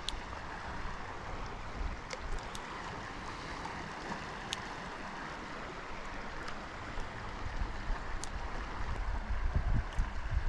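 Steady rush of flowing river water, with a few faint ticks and wind buffeting the microphone in the last couple of seconds.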